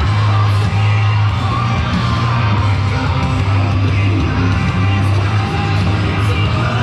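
Loud wrestling entrance music with a heavy, steady bass line, with people in the crowd yelling and whooping over it.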